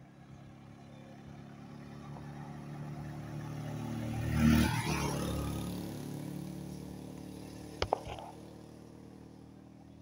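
A motor vehicle passes by on the road. Its engine grows louder to a peak about four and a half seconds in, then fades away. Near eight seconds there are two short, sharp clicks.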